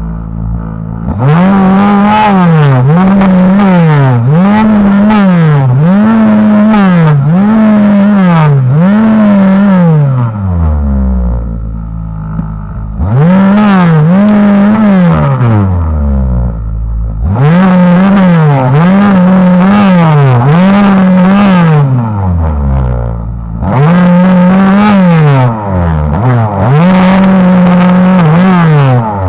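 Lynus MLY-55 two-stroke chainsaw revved hard in repeated pulses, about one a second. Its engine note climbs high and drops back each time, and it falls to idle a few times between runs.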